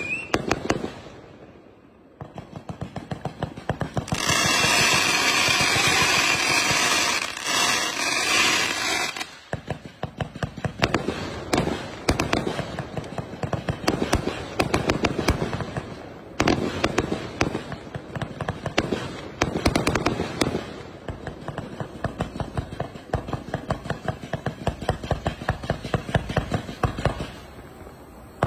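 A 268-shot, 1.2-inch fireworks cake firing its tubes in rapid succession, with shots and bursts popping and crackling overhead. There is a brief lull about a second in, and a louder, continuous stretch from about four to nine seconds in.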